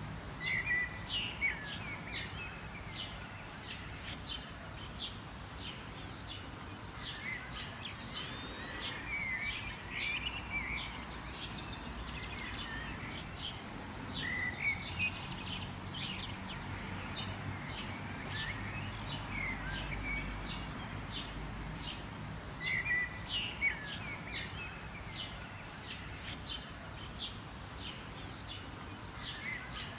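Several birds chirping and calling continuously, many short high notes and trills overlapping, over a low steady background rumble.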